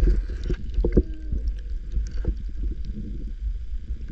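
Water sloshing and knocking around a kayak, heard muffled under a deep low rumble. Scattered knocks run through it, and there is a brief sliding tone about a second in.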